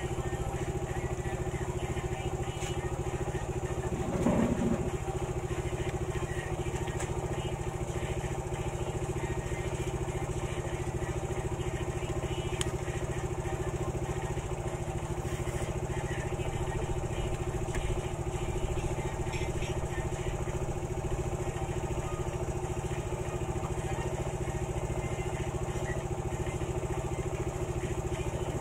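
Steady mechanical drone of a motor running continuously, unchanging in pitch and level. A short vocal sound comes about four seconds in, with a few faint clicks later.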